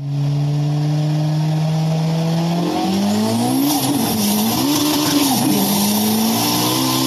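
Race-car engine sound effect: a steady drone for about three seconds, then the pitch climbs and swoops up and down as it revs, over a loud hiss.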